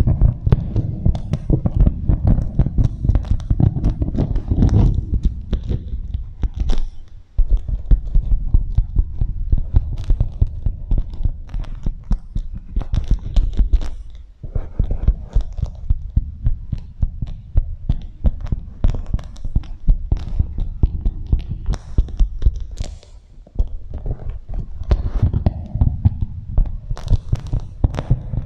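Beeswax wrap crinkled and rubbed against a microphone with an echo effect: a dense stream of low, muffled thumps and crackles that breaks off briefly a few times.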